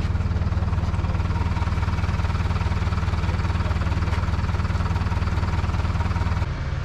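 Engine of a heavy recovery vehicle running steadily with a strong low hum. It eases off a little near the end.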